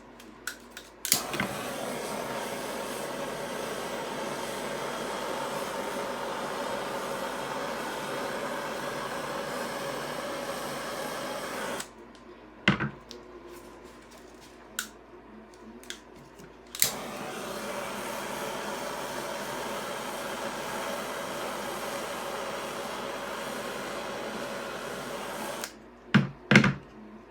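Small handheld torch flame hissing steadily over wet epoxy resin to draw out cells and lacing. It starts with a click about a second in and runs about ten seconds, then after a few clicks and knocks it is lit again with a click and burns about nine seconds more.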